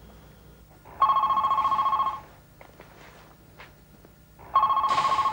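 Telephone ringing twice, each ring a warbling electronic trill lasting just over a second, the rings about three and a half seconds apart.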